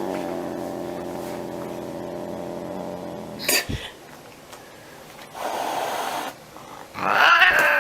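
Domestic cat growling low and steadily for about three seconds, then a sharp spit, a hiss about halfway through, and a loud yowl near the end: a defensive, agitated cat.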